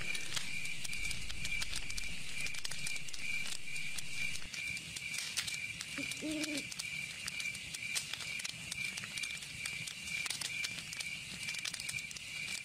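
Fire crackling, with irregular sharp snaps over a steady hiss, together with a high chirping pulse repeating about four times a second. A single short low call sounds about six seconds in.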